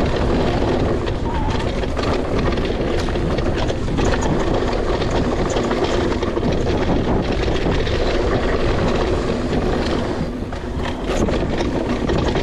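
Wind buffeting the camera microphone as a mountain bike rides fast down a dry dirt singletrack, with tyre rumble and a steady run of small knocks and rattles from the bike over the bumps.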